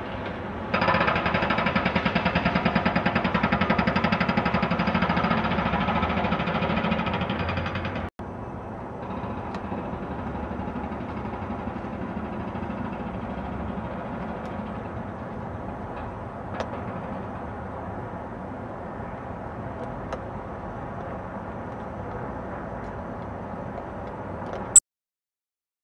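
Hydraulic excavator with a demolition attachment working: diesel engine and hydraulics running steadily with a high whine. About eight seconds in the sound breaks and drops to a quieter steady machine hum, which cuts off suddenly near the end.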